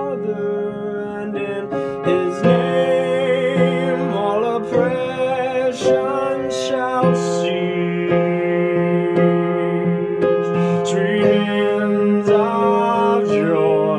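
A man singing a Christmas carol with vibrato on long held notes, over piano accompaniment.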